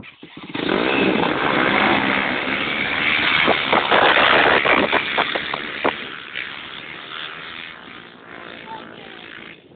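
A pack of off-road racing engines opening up at once at a race start, coming in suddenly about half a second in. The engines run loud for several seconds with quick rises in revs, then fade as the field pulls away.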